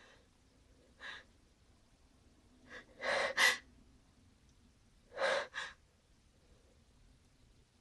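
A person's sneezing buildup: quick gasping breaths in, then a loud two-part burst about three and a half seconds in, the sharp release of a sneeze, and a second similar burst about two seconds later.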